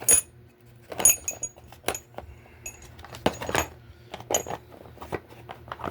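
Steel sockets and tools in a plastic socket-set case clinking and knocking as the kit is handled, a string of separate sharp clicks, several with a short metallic ring.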